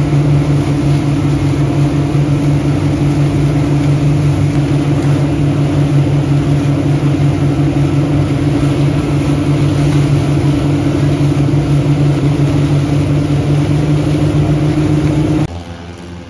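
An engine running steadily at a constant speed. It cuts off abruptly near the end.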